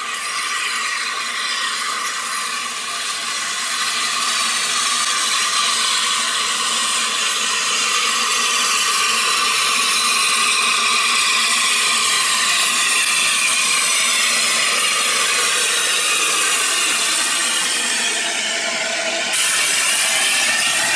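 Austerity 0-6-0 saddle-tank steam locomotive drawing into the station with a train, its sound growing louder as it nears, with a louder burst of steam hiss about two seconds before the end as it passes.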